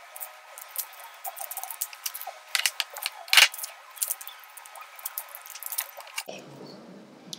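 Papery garlic skin crackling as fingers peel it off the cloves, in a run of small irregular clicks and rustles, the loudest about three and a half seconds in.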